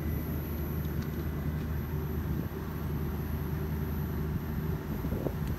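Steady low mechanical hum of a Daikin VRV III outdoor unit running during its start-up self-check, several even low tones with a noise haze and no change throughout.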